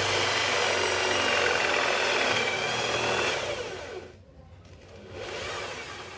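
Corded electric drill boring into plywood for a concealed cup-hinge hole. The motor whines steadily for about three and a half seconds, then winds down. A shorter, quieter burst of drilling comes near the end.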